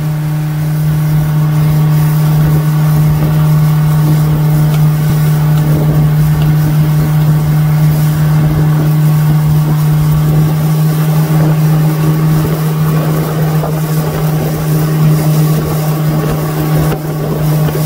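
Suzuki outboard motor running at a steady high throttle, an even drone that holds one pitch throughout, over a hiss of rushing air and wake water.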